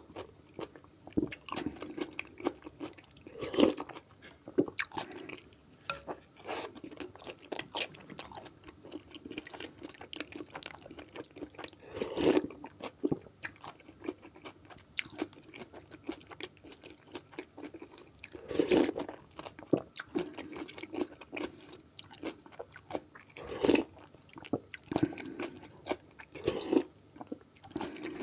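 Close-up eating: chewing and slurping spoonfuls of okroshka, a cold soup, between bites of sausage sandwich. Many small wet smacks and clicks, with a louder slurp every few seconds.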